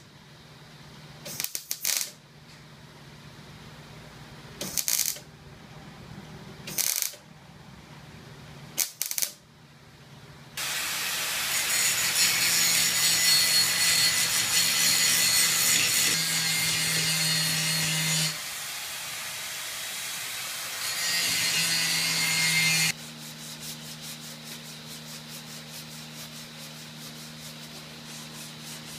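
Hand-held grinder cutting metal, first in four short passes of about a second, then a long run of about eight seconds and another of about two. In the last few seconds comes the rubbing of hand sanding with a sanding block, in regular strokes over a steady low hum.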